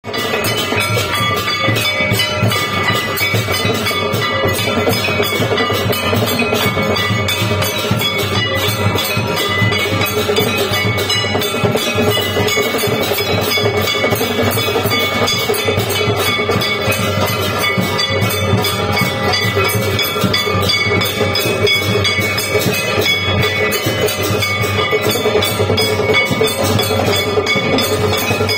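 Handheld brass gongs and metal plates beaten rapidly and without pause with sticks, a dense, steady metallic clanging with ringing overtones, as in Hindu temple worship percussion.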